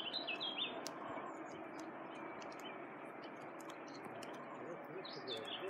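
Small birds chirping briefly in the first second and again about five seconds in, over a faint steady outdoor hiss.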